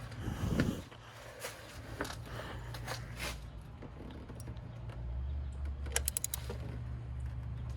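Scattered metallic clicks and clinks of a spark plug socket and ratchet being worked down in the plug wells, with a quick run of clicks about six seconds in, over a low steady hum.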